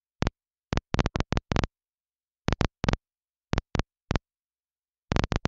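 Air-band radio receiver letting through an irregular string of short static clicks and crackles as its squelch briefly opens, with dead silence between them.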